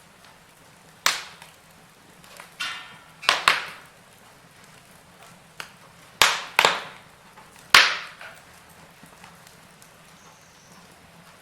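Wood fire in a fireplace crackling, with several sharp pops from the burning logs at uneven intervals over a faint steady background.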